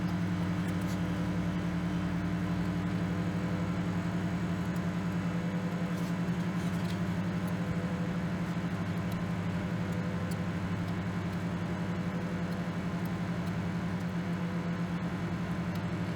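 Microwave oven running on high: a steady electrical hum that holds throughout.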